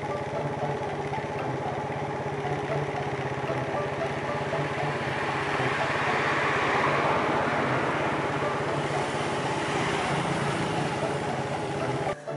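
Street traffic: a motor vehicle engine runs steadily nearby. A passing vehicle's noise swells to a peak midway through and then fades.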